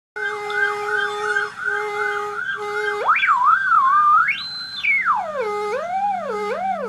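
Electronic music: a single theremin-like gliding tone holds a steady note, jumps up and warbles about three seconds in, then climbs to a high held pitch and swoops up and down in waves. A low steady drone comes in underneath about five seconds in.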